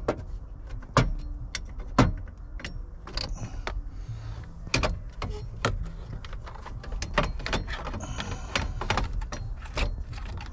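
Shift tube and steering-column parts of a Ford F-250 clicking and knocking as they are worked into place by hand: a string of irregular sharp knocks, the loudest at the start and about one and two seconds in.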